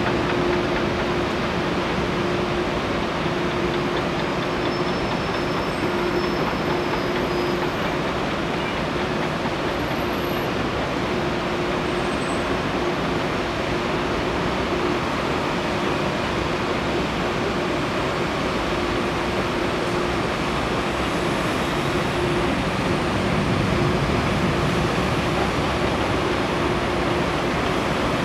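Boeing 747 jet engines at takeoff power, heard from afar as a steady broad roar with a constant hum under it, swelling slightly as the jet climbs out.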